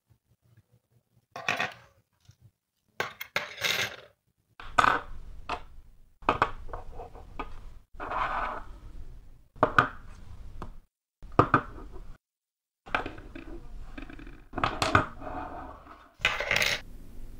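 Small metal Meccano parts (strips, brackets, nuts and bolts) clinking and rattling against each other and the table in a string of short spells, each a second or so long and cut off abruptly.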